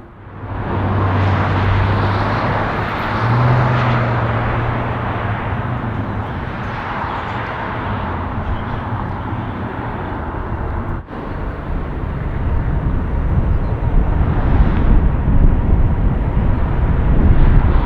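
Jet airliner engines: a steady rushing noise with a low hum, with a brief dropout about eleven seconds in. The low rumble grows louder over the last few seconds.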